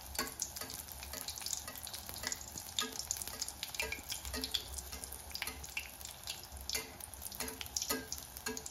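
Hot oil sizzling and crackling in a metal kadai as a pua pithe fries, while a metal spatula moves through the oil and splashes it over the cake, with soft repeated knocks about twice a second.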